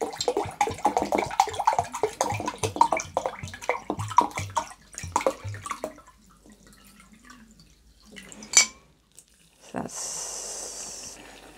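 Water glugging in quick uneven gulps as it pours from a glass swing-top bottle into a measuring jug. After a pause and a single sharp click, a steady stream of water pours from the jug into a cafetière onto coffee grounds for about a second.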